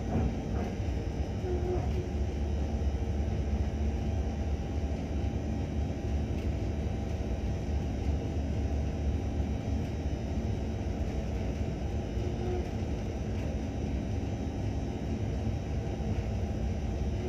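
Steady low rumble of a ship's engines and machinery running, with a faint steady hum over it.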